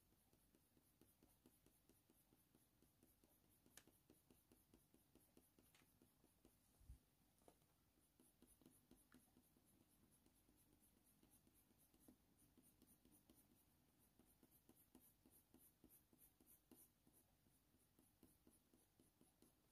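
Near silence, with faint rapid scratching of a Faber-Castell Polychromos coloured pencil making short shading strokes on hot-press watercolour paper. A soft low bump comes about seven seconds in.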